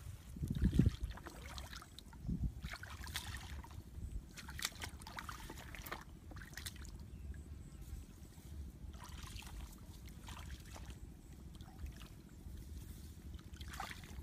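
Legs and hands splashing and sloshing through shallow muddy paddy water in scattered bursts every second or two, the biggest splash about a second in, over a steady low rumble.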